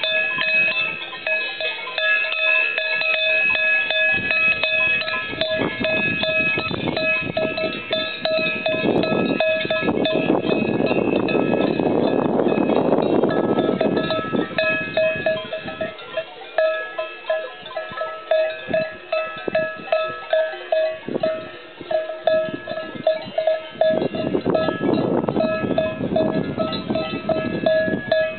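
Many cowbells on grazing cattle clanking and ringing together in an irregular jangle, with a steadier rhythmic clang near the end. A rushing noise swells beneath them twice, about a third of the way in and again near the end.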